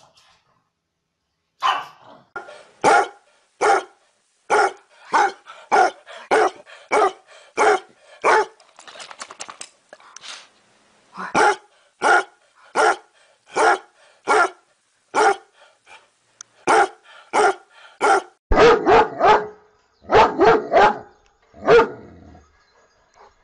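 Dogs barking: a long run of short, sharp barks, about one to two a second, then a cluster of louder, deeper barks near the end.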